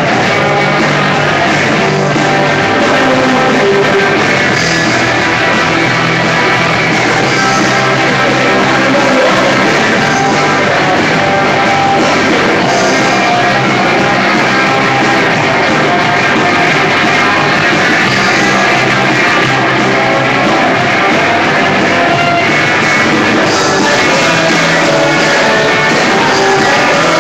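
A rock band playing live: electric guitar, bass guitar and drums, loud and steady, picked up on a mobile phone's microphone.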